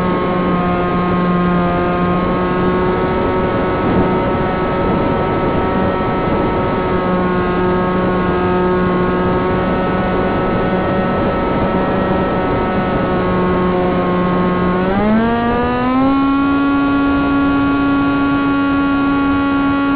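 Wing Wing Z-84's electric motor spinning its propeller on a balance test run: a steady whine that rises in pitch about fifteen seconds in as the throttle is opened, then holds at the higher speed.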